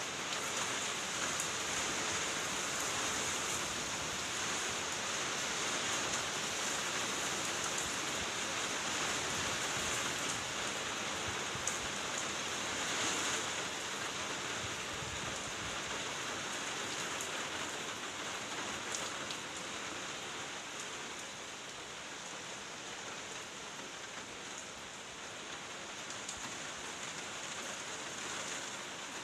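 Steady heavy rain: a dense, even hiss with a few scattered drop ticks, easing slightly after about twenty seconds.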